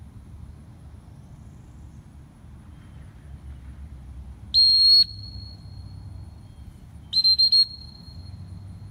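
A person blows two loud, shrill whistle blasts about two and a half seconds apart, each a steady high note. The second blast wavers. This is a whistle recall for a dog.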